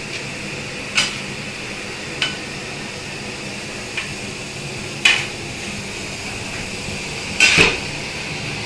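Metal utensils knocking against large aluminium cooking pots about five times, the loudest a double clang near the end, over a steady hiss from gas burners.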